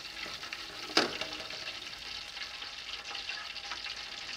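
Hot peanut oil sizzling in a turkey fryer pot as oil runs off the freshly lifted fried turkey back into it. A single sharp click about a second in.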